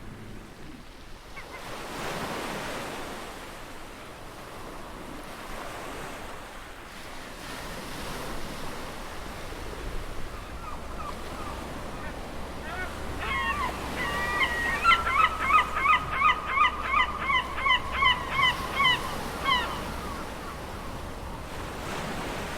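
Ocean surf washing in as a steady rushing noise, with a bird giving a long run of rapid, repeated honking calls, about two or three a second, for several seconds past the middle.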